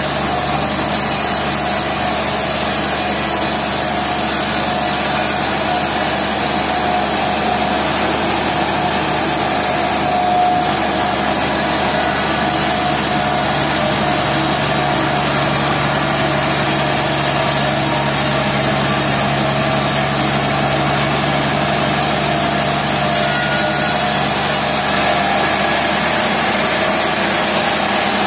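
Sawmill machinery running steadily: a loud, even engine-driven drone with a steady whine, unchanging throughout.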